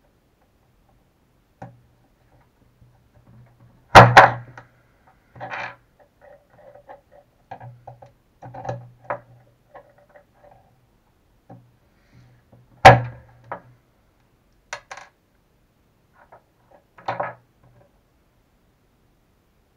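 Pliers and small RC shock parts being handled on a tabletop: scattered light clicks and taps, with two louder sharp knocks, about four seconds in and again about thirteen seconds in.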